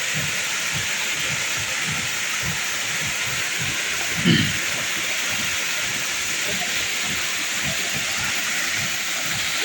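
Steady rushing hiss of a waterfall, with a brief low thump about four seconds in.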